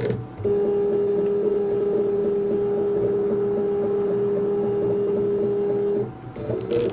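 CNC machine's stepper motors driving an axis at constant speed: a steady pitched whine that stops about six seconds in, followed near the end by short moves at changing pitches.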